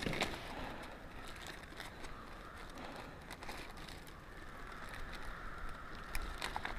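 Faint crinkling and rustling of a clear plastic bag being picked at and twisted open by hand, with a few small clicks near the end.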